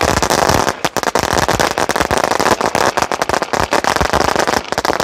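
A 10,000-cracker string of firecrackers (a ladi) going off, its crackers bursting one after another in a dense, unbroken run of sharp bangs, many a second.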